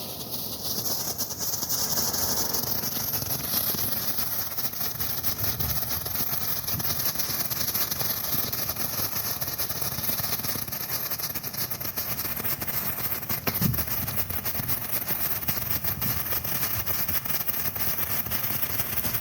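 Several strobe fireworks burning at once, their rapid pops merging into a dense, steady rattling crackle.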